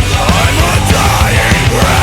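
Loud, aggressive heavy rock music with rapid drum beats.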